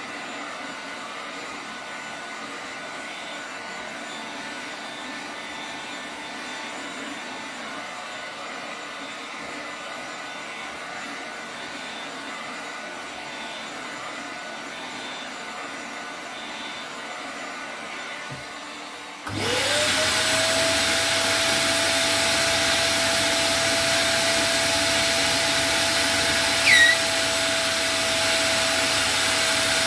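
Wet/dry vacuum cleaner pulling vacuum under vinyl wrap film switches on about two-thirds of the way through; its motor spins up within a second to a steady high whine. Before that there is a quieter steady hiss, and near the end a brief, loud, falling squeak.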